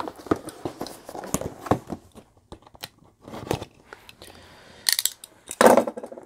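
Sticky tape being peeled off a cardboard kit box while the box is handled: irregular crinkling, rustling and small clicks, with a short steady hiss of tape lifting about two-thirds through and louder crackles near the end.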